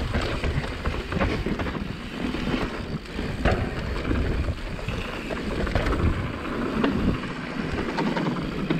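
Wind buffeting a mountain bike's handlebar-mounted action camera during a fast downhill singletrack descent, over the rumble of tyres on dirt, with occasional sharp clacks from the bike rattling over bumps.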